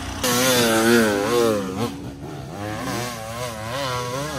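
Dirt bike engine revving up and down in quick repeated surges, about twice a second, as the rider works the throttle climbing a steep, rough hill.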